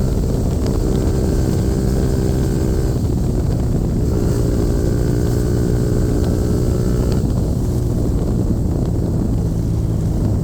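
Yamaha MT-15's single-cylinder engine running through a full-system Akrapovic replica exhaust, held at a steady pitch, with its sound dropping back twice: about three seconds in and about seven seconds in.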